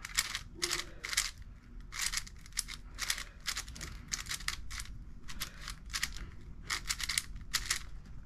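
YJ MGC 5x5 magnetic speedcube being turned quickly by hand: a run of short plastic clicks and clacks as its layers snap round, two or three a second, with brief pauses.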